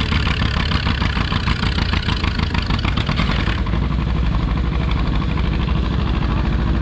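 Antique farm tractor engines idling, not under load: a steady low rumble with rapid firing pulses. The brighter, rattly upper part of the sound drops away about three and a half seconds in, leaving the low rumble.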